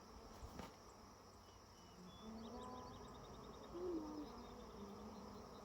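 Honey bees buzzing around an open hive, with single bees flying close past the microphone as short, wavering hums that come and go.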